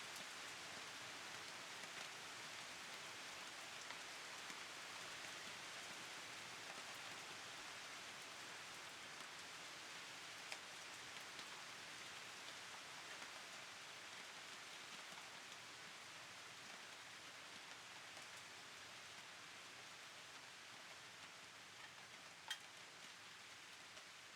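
Steady rain falling, a fairly quiet even patter with a few single louder drops, one about ten seconds in and another near the end; no thunder.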